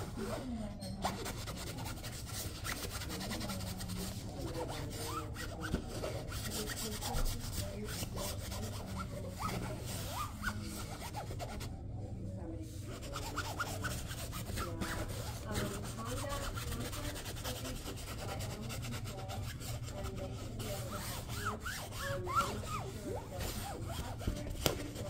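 Nylon fabric of a pop-up play tunnel being rubbed and scratched, with a kitten pawing at it from inside and a hand brushing it from outside. It makes an irregular scratchy rustling with small clicks.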